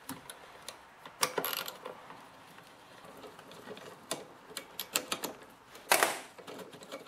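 Socket ratchet clicking in short irregular runs as it backs out the 8 mm bolts holding a lawnmower's air filter housing, with a few louder knocks about a second in and near the end.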